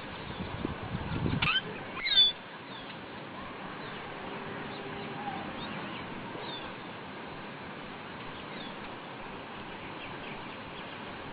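A bird calling in short, quick chirps, loudest about two seconds in, then fainter, sparser chirps over a steady background hiss. A low rumble runs under the first second and a half.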